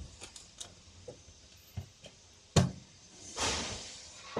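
A few light clicks and taps as a boat's deck storage-box lid is handled, then one sharp knock about two and a half seconds in as it is shut, followed by a short rustle.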